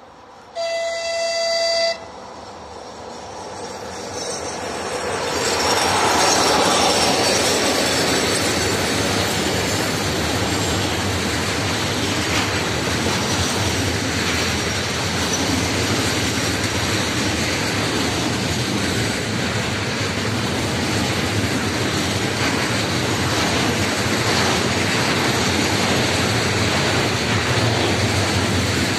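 Electric locomotive of a container freight train sounds one horn blast, about a second and a half long, that cuts off sharply. Then the train's noise swells as the locomotive comes close and passes, and the container wagons follow with a steady rolling rumble of wheels on rails.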